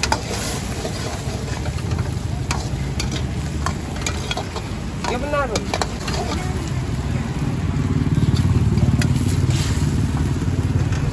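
Steel ladle scraping and clinking in an iron wok as Manchurian in sauce is stirred and sizzles. A low vehicle engine rumble grows louder about two-thirds of the way through.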